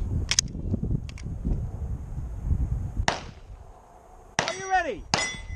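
A competition pistol being reloaded by hand: a crisp click within the first half second as the magazine is handled, rustling movement, then one sharp snap about three seconds in. A voice near the end.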